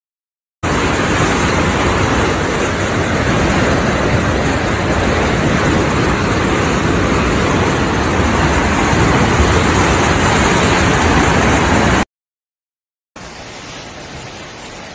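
Loud, steady rush of muddy floodwater pouring down a street, cutting off abruptly about twelve seconds in. After a brief silence a quieter rush of water and rain follows.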